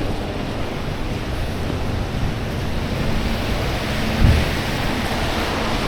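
Steady rushing noise of wind and city traffic on a snowy street, with a low thump about four seconds in.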